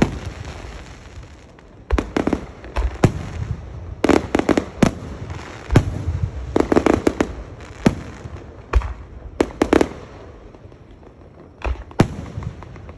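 Aerial fireworks exploding overhead: irregular volleys of sharp bangs and crackles, some in quick clusters, with a lull of rumble around 10 to 12 seconds in before another loud bang near the end.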